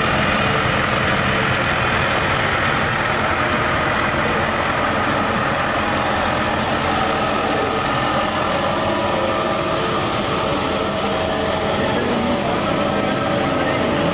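Farm tractor diesel engines running steadily as the tractors drive slowly past, one after another, one of them pulling a trailer.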